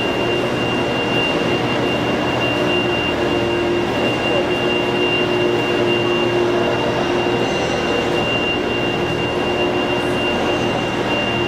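Heavy machinery running steadily: a continuous low drone with a thin, steady high whine over it.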